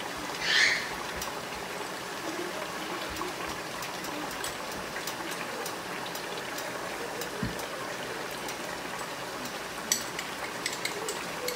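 Chicken curry sauce simmering in a pot: a steady bubbling hiss with scattered small pops, and a brief louder hiss about half a second in.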